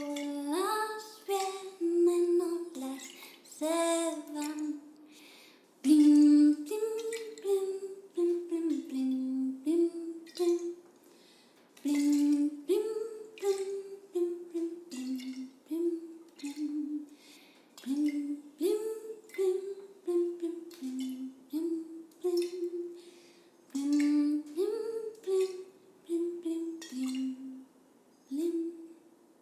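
A woman humming a simple, slow melody in short phrases of held notes, a song in Dorian mode. Short water sounds, like drips and splashes, click through it.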